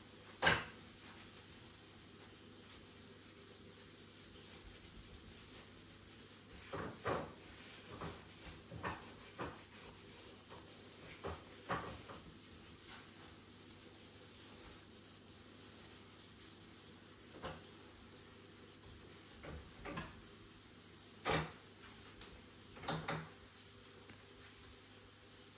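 Sporadic light knocks and clatters of kitchen items being picked up and set down on a countertop, with some rubbing from wiping. The sharpest knock comes just after the start, and the others come in loose clusters.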